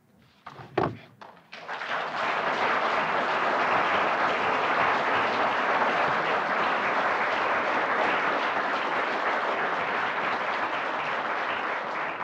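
Audience applauding at the close of a lecture: a few scattered claps, then from about a second and a half in, full steady applause that eases slightly near the end.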